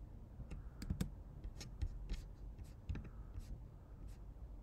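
Computer mouse clicking and being handled while a slider is dragged and the timeline is clicked: about ten soft, irregular clicks, the loudest about a second in.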